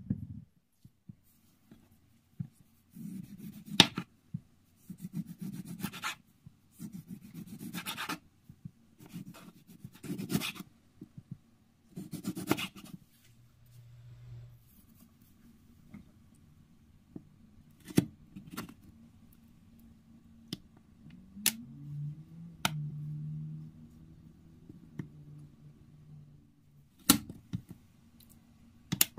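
Knife slicing tomatoes on a bamboo cutting board: about five cuts roughly two seconds apart, each a short scraping stroke ending in a knock on the board. Later come scattered light taps, and near the end two sharp clicks as a round metal ring cutter is pressed into a tomato slice on the board.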